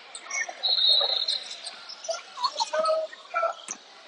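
Basketball shoes squeaking on the gym floor during play: a held high squeak about half a second in, then several shorter squeaks, over faint voices and court noise in the hall.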